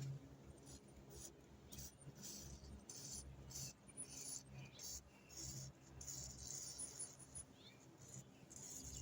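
Faint, repeated short hisses of an aerosol dry chain lube sprayed through its nozzle onto a motorcycle chain.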